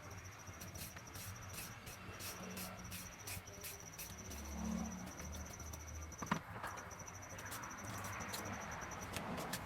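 An insect trilling steadily at a high pitch, pausing briefly about six seconds in, over scattered light clicks and one sharper knock just after six seconds.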